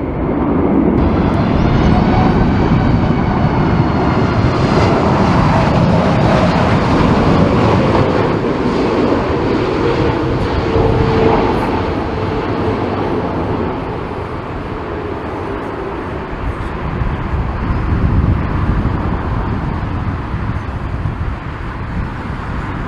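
Boeing 747 jet engines passing on a landing approach: a loud roar with high whining tones that slide down in pitch, easing off after about thirteen seconds.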